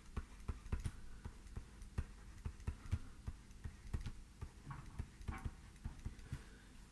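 Stylus tapping and scraping on a tablet screen as words are handwritten: a quick, irregular run of light clicks, several a second.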